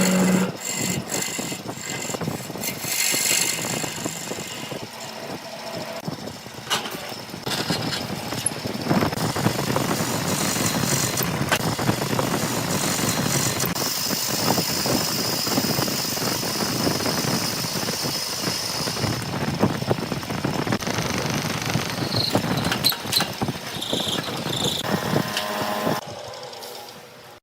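A woodworking machine running under load: a steady, noisy whir with scattered clicks and a high squeal, fading out near the end.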